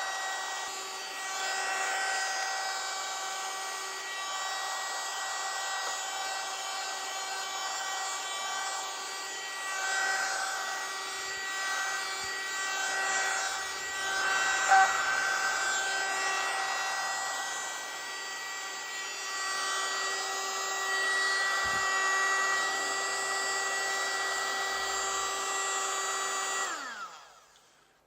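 Mini USB vacuum cleaner's small motor running with a steady high whine over a rush of air, with a sharp tick about halfway through. Near the end it is switched off and winds down, its pitch falling.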